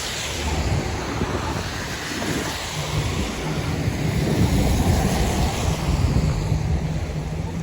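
Storm wind gusting against the microphone in an even rush of noise, with a low hum of street traffic from about three seconds in.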